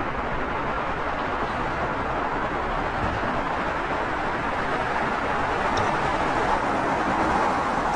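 Steady rushing noise of a car being driven, an even road and wind noise without a distinct engine note.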